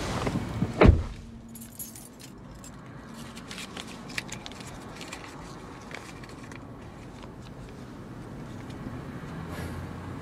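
A car door shuts with a thud about a second in, then keys jingle and click faintly inside the quiet car cabin.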